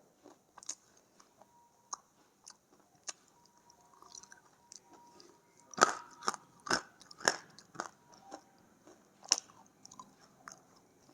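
Dry edible clay being bitten and crunched in the mouth: scattered sharp crunches, loudest in a quick run of bites about six to seven and a half seconds in, with another near the end.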